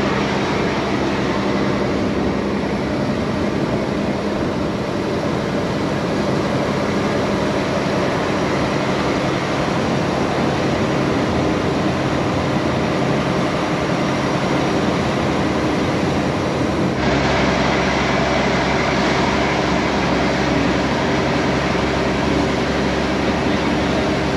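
A river boat's engine running steadily under a rushing noise of water and wind. About two-thirds of the way through, the hum changes suddenly to a deeper, fuller one and then holds steady.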